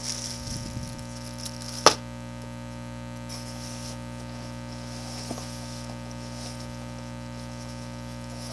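Plastic wrapping crinkling as a bagged cable is handled, with one sharp knock about two seconds in, over a steady electrical hum.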